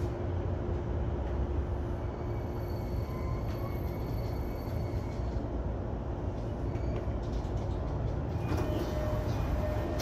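E233-1000 series electric train running on the rails: a steady low rumble, with a faint steady whine that fades out about halfway through. A few higher clicks and tones come in near the end.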